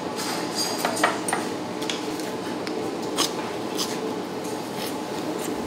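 Eating at the table: a spoon and chopsticks click against a ceramic rice bowl and plate, with bites into tempura, heard as scattered short sharp clicks over a steady low background hum.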